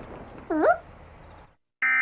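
A short yelp that dips and rises in pitch, fading away within a second. Near the end, a loud buzzy Emergency Alert System data burst (SAME header tones) starts abruptly.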